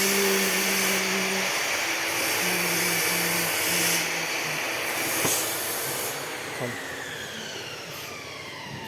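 A power tool running with a loud, steady, hissing noise, then winding down with a falling whine from about six seconds in.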